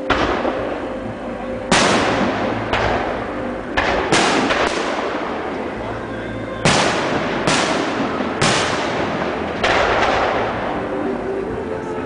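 Aerial fireworks shells bursting in an irregular series of about ten bangs. Each bang trails off in a long echo.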